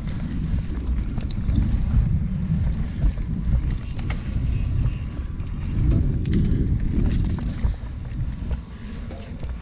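A Norco mountain bike ridden fast on dirt singletrack: a steady rumble of wind buffeting the microphone and tyres over the ground, with scattered clicks and rattles from the bike's drivetrain and frame over the bumps.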